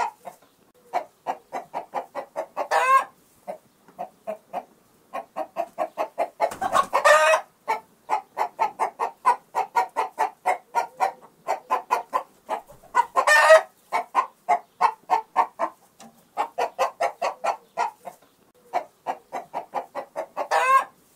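Chicken clucking in fast runs of short clucks, about six a second, broken four times by a louder, longer squawk that rises in pitch.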